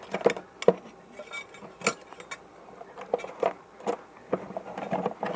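Small metal tools and objects clinking and clicking as they are picked up and moved around on a jeweler's workbench, in a search for tweezers: a scatter of separate light knocks, irregularly spaced.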